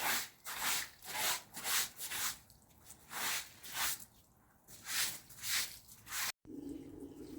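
Rhythmic rubbing strokes, about two a second, in short runs with brief pauses. Near the end the sound cuts off suddenly and a steady low hum follows.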